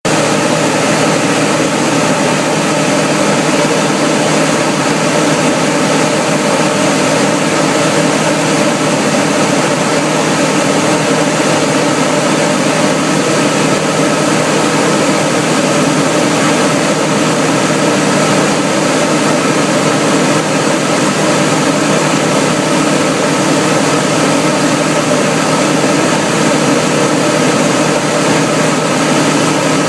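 Single-engine propeller airplane's piston engine and propeller droning steadily in cruise flight, heard inside the cockpit with a constant rush of airflow noise.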